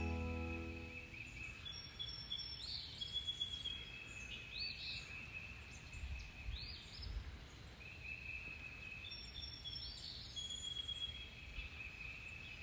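Birds singing: short arching whistled notes every couple of seconds between long steady whistles, over a faint low rumble. Background music fades out in the first second.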